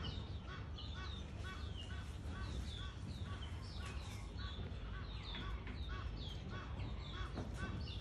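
Steady chorus of short, high chirping calls and descending peeps, several a second, over a low background rumble.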